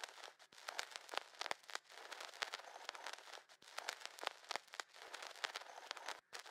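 Irregular crackling and clicking over a faint hiss, with a steady low hum underneath. It all drops out briefly near the end.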